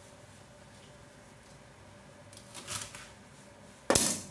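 Kitchen knife cutting red bell pepper on a wooden chopping board: a few soft, quick cuts a little past halfway, then one sharp knock on the board near the end.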